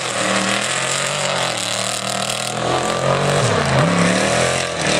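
Trophy truck's 900-plus-horsepower engine revving hard as it drives, its pitch rising and falling with the throttle, with a deep dip and a climb again about three and a half seconds in.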